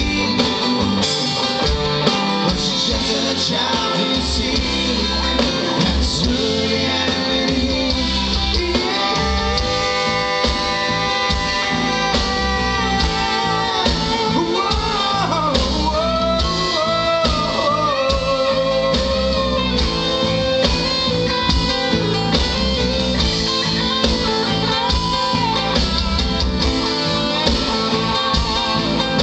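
Live band playing an instrumental stretch: electric and acoustic guitars, bass and drums, with a lead line of long held notes that turn into bending, wavering notes around the middle.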